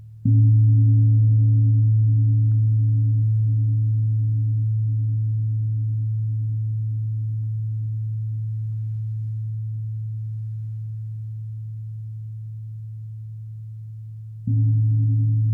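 Deep-toned metal percussion instrument struck with a soft mallet, twice: each stroke gives a pure low hum with a few higher overtones that waver slowly, fading gradually over about fourteen seconds until the second stroke near the end.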